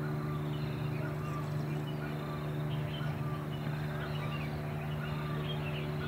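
A steady low hum, the loudest sound, with short bird chirps repeating over it every second or so.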